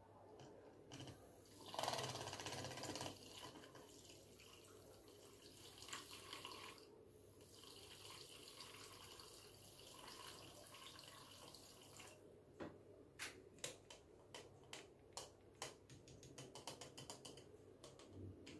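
Faint stirring of a liquid perfume mix in a small glass jug with a spoon, working musk in to dissolve it. Near the end comes a quick run of light clicks as the spoon taps against the glass.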